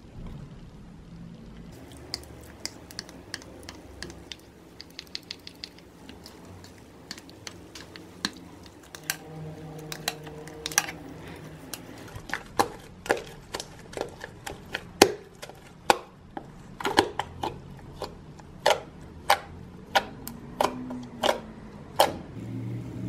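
Freshly mixed white slime being kneaded and poked by hand in a stainless steel bowl, giving many sharp sticky clicks and pops. They come faint and sparse at first, then louder and quicker in the second half.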